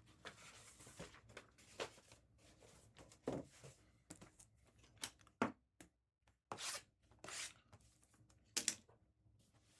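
Trading-card pack wrappers being ripped open and handled: several short tearing and crinkling sounds, a few seconds apart.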